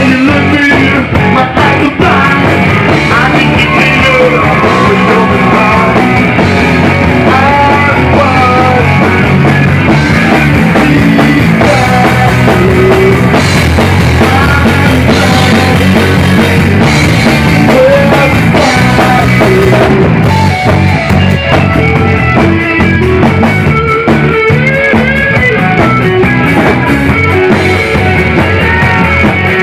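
Loud rock music: a band playing electric guitar and drum kit, with a singing voice.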